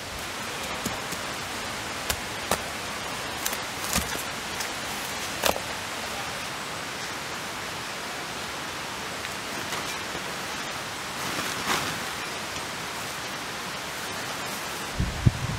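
Steady outdoor hiss with a few sharp knocks and cracks of firewood being handled in the first six seconds, then a rustle of tent fabric about twelve seconds in and a thump near the end.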